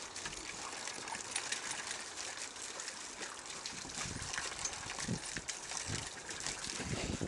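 Water splashing and sloshing in a plastic pool as dogs wade and jostle in it, with a thin stream of water pouring in.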